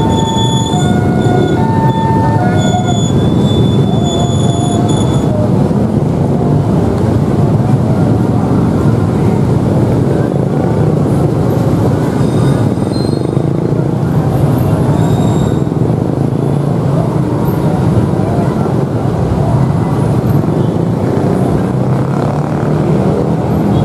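Passenger train rolling slowly along the track into the station: a steady low rumble of wheels on rail. During the first five seconds a two-pitch tone alternates high and low over it.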